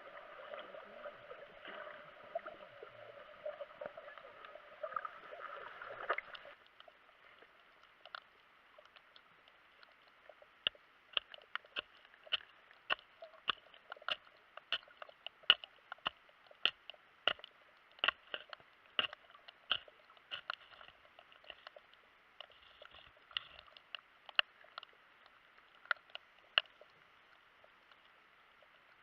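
Muffled water sloshing for about six seconds, then a quieter stretch with a run of sharp clicks, about one or two a second, with all of it dulled and high sounds cut off, as if heard underwater.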